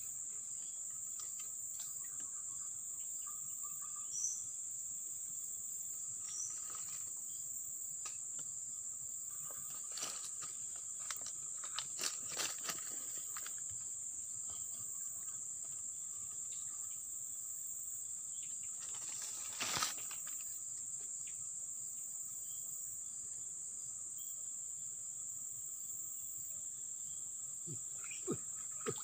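Steady, high-pitched drone of insects, with a few scattered short clicks and knocks, the loudest about twenty seconds in.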